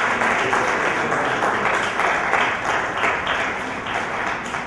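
Audience applauding, many hands clapping together, dying down a little near the end.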